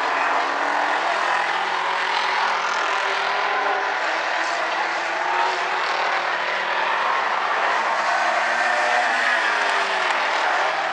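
Several compact stock-car engines running together at racing speed, their overlapping pitches rising and falling as the cars accelerate and lift.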